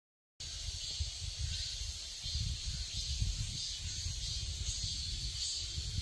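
Outdoor ambience: wind rumbling on the microphone under a steady high hiss, starting suddenly about half a second in.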